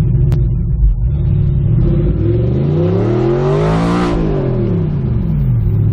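Audi R8 engine at full throttle in first gear, heard from inside the cabin with the exhaust valves open: the revs climb steadily for about three seconds to a peak about four seconds in, then fall away quickly as the throttle comes off.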